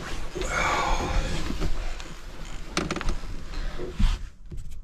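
Rustling and handling noise with a couple of sharp knocks: someone moving about in a truck bed camper, gathering gear and getting dressed.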